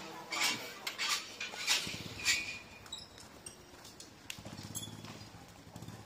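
A few irregular sharp clicks and clinks over the first two seconds or so, then a faint low buzzing rattle from about four to five and a half seconds in.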